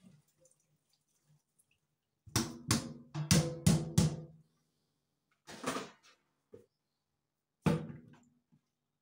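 A series of sharp knocks, each with a short low ringing tone: about six in quick succession a couple of seconds in, then two more spaced out near the middle and the end.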